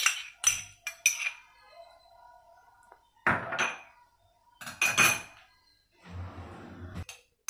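Kitchenware clinking and knocking against an aluminium cooking pot as curd is tipped in from a cup. It comes in several short bouts of clatter, with a longer, rougher stretch of noise near the end.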